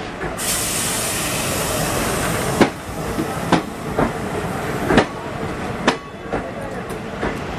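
Passenger coaches of a departing train rolling past, their wheels clacking over rail joints in sharp single clicks about a second apart over a steady rumble. A hiss sits over the rumble for the first two seconds or so.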